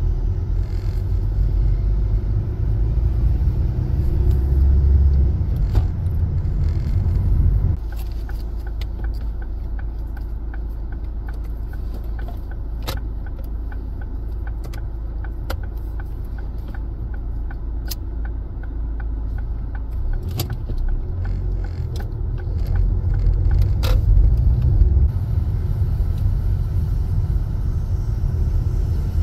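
Car driving on a road, heard from inside the cabin: a steady low rumble of engine and tyres that drops suddenly about eight seconds in and grows louder again in the last third. A few scattered sharp clicks sound over it.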